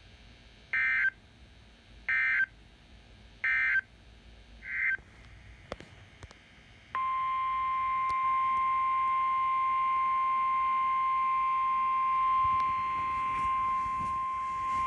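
Emergency Alert System signalling on a NOAA Weather Radio broadcast: three short bursts of warbling SAME digital data tones, each about a second and a half apart, then a fainter fourth burst. About seven seconds in, a loud, steady single-pitch alert tone begins and holds without a break.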